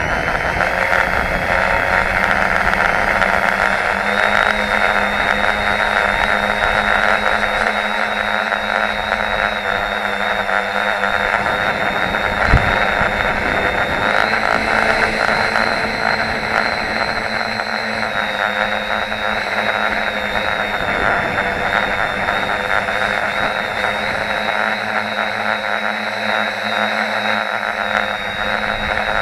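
FPV tricopter's electric motors and propellers running in flight, a steady buzzing drone with a high whine that rises slightly and falls back as the throttle changes. One sharp knock about twelve seconds in.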